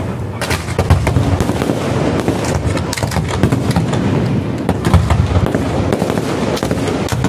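Fireworks display: a dense, rapid run of bangs and crackles over a continuous low rumble.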